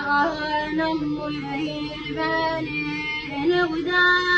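A boy singing solo in a high, clear voice: a mournful Arabic lament in Iraqi style. He holds long notes with small ornamental turns, rising to a long held note near the end.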